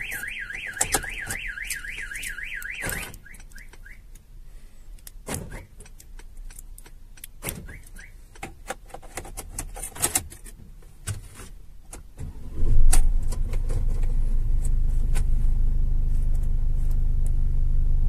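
A van alarm's fast warbling tone sounds for about three seconds and then stops as the Starline system disarms, followed by a few scattered clicks. About twelve seconds in, the Mercedes Vito's diesel engine cranks, catches and settles into a steady idle.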